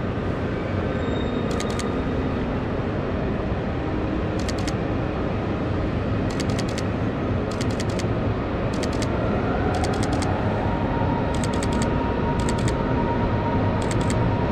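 Canon EOS R shutter firing in about a dozen short bursts of a few frames each, over the steady loud rumble of a train station hall. About nine seconds in, a whine rises and then holds steady, typical of an electric train.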